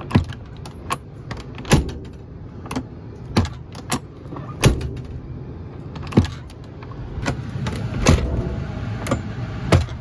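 Airstream entry door's newly fitted exterior paddle latch handle being pulled and let go over and over: about a dozen sharp metallic clicks and clacks, roughly one every half second to a second, as the latch is tested for release.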